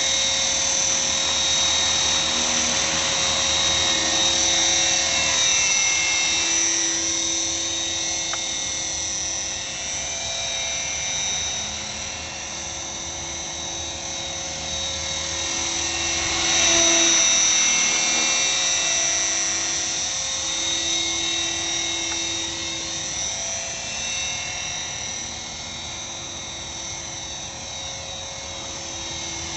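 Align T-Rex 450 SE electric RC helicopter in flight: a steady high whine from its brushless motor and gears over the rotor noise. It swells and fades as the helicopter moves about, loudest about halfway through as it passes close.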